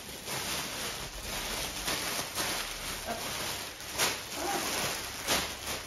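Plastic packaging crinkling and rustling as bags of diamond-painting drills are handled and torn open, with sharper crackles about two and a half, four and five seconds in.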